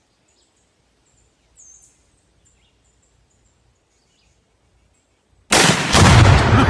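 A few faint high bird chirps, then about five and a half seconds in a two-pound charge of Tannerite binary exploding target, set off by a rifle shot, detonates with a sudden, very loud boom that keeps rumbling.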